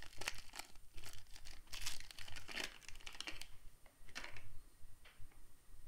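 Foil energy-bar wrapper crinkling as the bar is pulled out of it, dense crackling that thins out after about three and a half seconds to a couple of last rustles.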